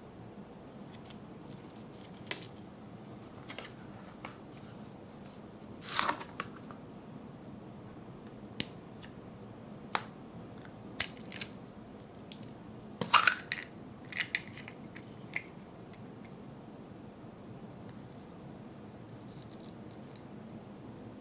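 A hollow chocolate egg being cracked apart by hand and its contents handled: a scattering of sharp cracks, crinkles and small clicks, the loudest about six and thirteen seconds in.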